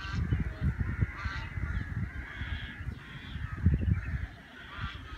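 Birds give short calls a few times, over wind rumbling and buffeting the microphone; the wind gusts are the loudest part.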